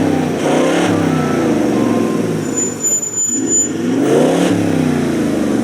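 A 4x4 vehicle's engine revving up and easing off twice as it is driven along a track, with the pitch rising and falling each time.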